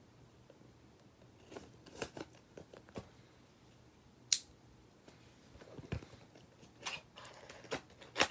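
Scattered clicks and scrapes of plastic toy packaging being cut open and handled, with one sharp snip-like click about four seconds in and a busier cluster of clicks near the end.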